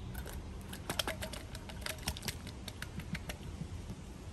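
Quick, irregular light clicks and taps from handling an opened can of grass jelly, a run of about twenty over the first three seconds that stops short of the end.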